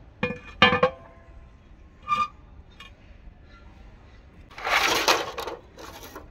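Heavy black iron tawa griddle set down on a wood-fired drum stove: two ringing metal clanks, then a lighter metal clink about two seconds in. Near the end comes about a second of rough scraping noise, with a shorter burst just after.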